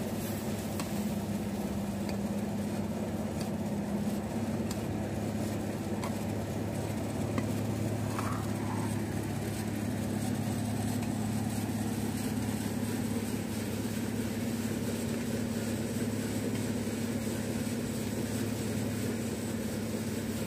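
A steady low hum like a motor running, the loudest sound, over milk boiling in an iron karahi as it is stirred with a steel ladle.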